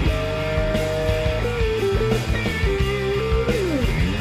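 Background music: a lead guitar melody of held and sliding notes over a steady beat.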